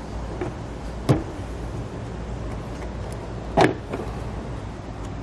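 Two sharp pops about two and a half seconds apart as a Subaru Forester's tail light housing is pulled free of its push-in retaining clips, over a steady low hum.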